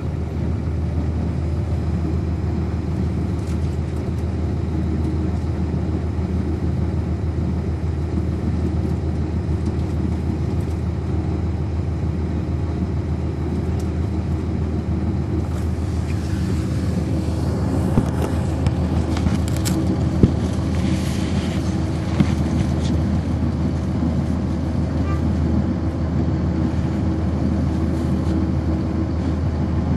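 A 1999 NovaBus RTS transit bus with a Cummins ISC diesel engine, heard from on board as a steady low engine drone. A little past the middle, a stretch of hiss comes in with a few sharp clicks.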